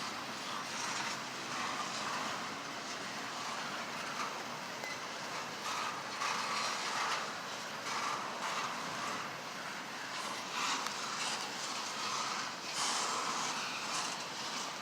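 Cars of a CSX intermodal freight train rolling past: a steady rumble and rattle of wheels on rail, with irregular clanks.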